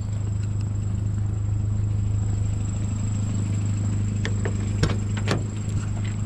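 1997 Ford Ranger pickup's engine running with a steady low hum. A few sharp clicks or knocks come about two-thirds of the way through.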